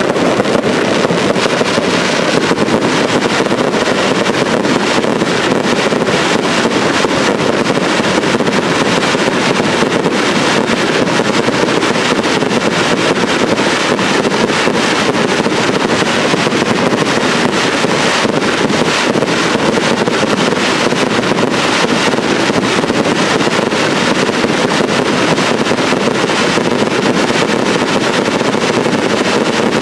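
Fireworks finale: a dense, continuous barrage of shell bursts and crackling stars, the reports so close together that they merge into one steady wall of noise.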